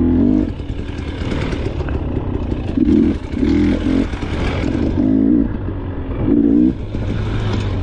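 Off-road dirt bike engine heard from the rider's position, revving up and down with several short bursts of throttle as it is ridden over a race trail.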